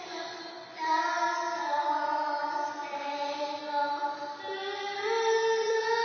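A young girl singing the national anthem, holding long notes that step and slide between pitches, with the pitch rising about four and a half seconds in.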